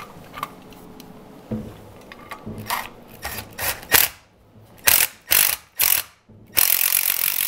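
Cordless Milwaukee M12 driver sinking a Tapcon screw through a steel electrical box into a concrete wall, in a string of short bursts and then a longer run of about a second near the end. Light clicks of handling come before it.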